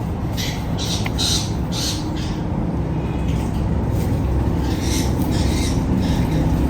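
Ringneck parrot (rose-ringed parakeet) giving short, harsh squawks: a quick run of about four in the first two seconds and two more about five seconds in, over a steady low rumble.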